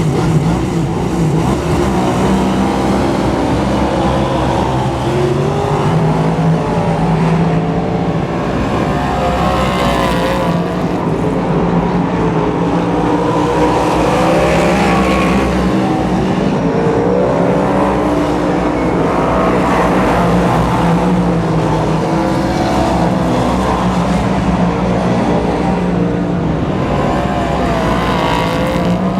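Jaguar V8-powered speedway superstock racing among other superstocks, the V8 engines rising and falling in pitch as they come on and off the throttle around the laps.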